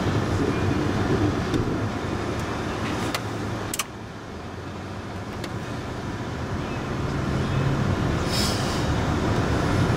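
Car engine and tyre noise heard from inside the cabin while driving. A couple of sharp clicks come a few seconds in. Then the noise drops suddenly and builds back up gradually.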